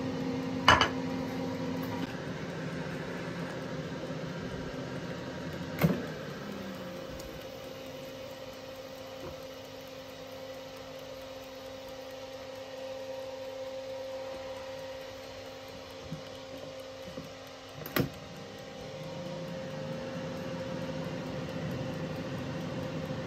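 Clikon AirChef air fryer running with a steady hum. Its lower tone drops out about two seconds in and comes back near the end, and there are three sharp clicks or knocks, near the start, about six seconds in and about eighteen seconds in.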